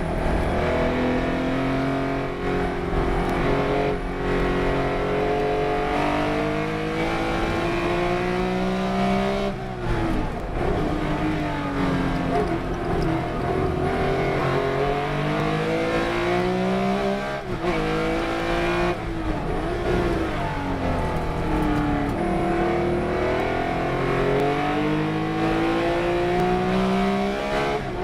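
Race car engine under hard acceleration, its pitch climbing through each gear and dropping at the shifts, with sharp lifts off the throttle about ten seconds in and again past the middle.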